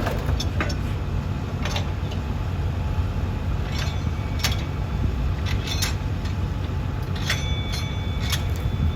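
Engine running steadily with a low rumble, with scattered sharp metal clinks and clanks over it and a thin high squeal near the end.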